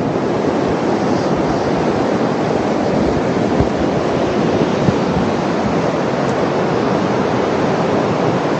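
Steady wash of Pacific Ocean surf, with wind buffeting the microphone in a few low thumps.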